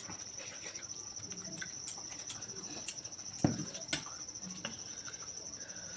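A steady high-pitched pulsing trill runs throughout, with a few light clicks of spoons against plates and bowls and one duller knock about three and a half seconds in.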